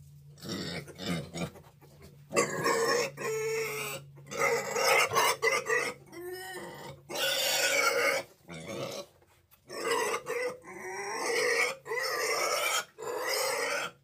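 Domestic pig squealing loudly in a run of repeated calls, each about a second long, with short pauses between them.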